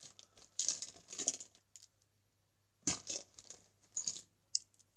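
Plastic Sharpie markers clattering and clicking against one another as they are taken out of a pencil case and set down, in three or four short rattling bursts.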